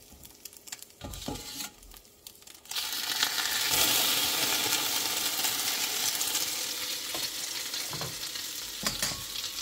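Egg-soaked slice of bread laid into a hot buttered cast iron skillet for French toast, in butter hot enough to start burning. After a few light clicks of metal tongs, a loud steady sizzle starts suddenly about three seconds in and keeps going.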